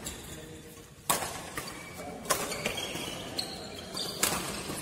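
Badminton racket strikes on a shuttlecock during a doubles rally: three sharp hits, one to two seconds apart. Short high squeaks of shoes on the court come between the later hits.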